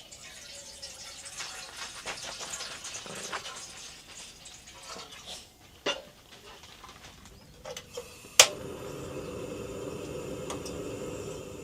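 Irregular handling and clattering noises, then a sharp click about eight seconds in, after which a steady machine hum starts and runs on.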